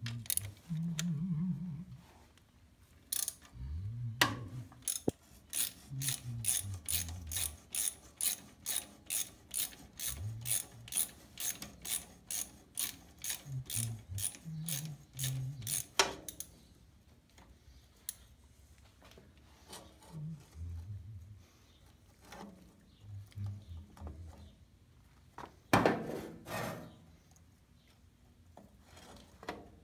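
Hand socket ratchet clicking at a steady pace, about three clicks a second for some ten seconds, as a bolt is undone; a louder clatter follows near the end.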